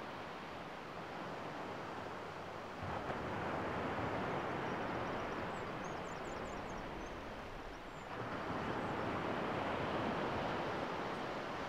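Steady rush of breaking surf and wind. It swells louder about three seconds in, eases near eight seconds, then swells again.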